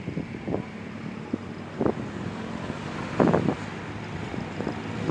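Wind gusting on the microphone in irregular buffets, the largest about three seconds in, over a low steady outdoor rumble.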